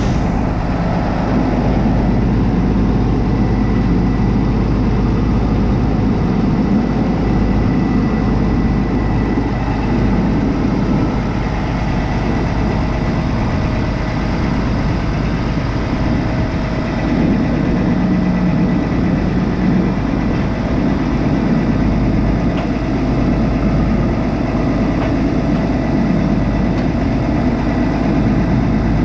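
New Holland TJ375 tractor's Cummins diesel engine idling steadily.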